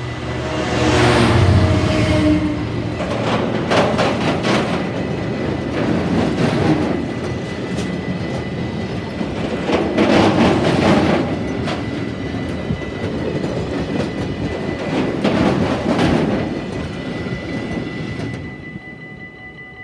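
Class 66 diesel-electric locomotive passing close, its two-stroke diesel engine loud for the first few seconds, followed by a long train of tank wagons rolling by. The wheels clack over the rail joints, swelling every few seconds as each set of bogies passes, and the sound fades near the end as the last wagon goes by.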